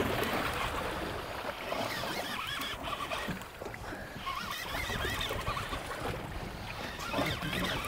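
Wind and sea water sloshing around a small fishing boat drifting on open water, a steady noise with no single loud event.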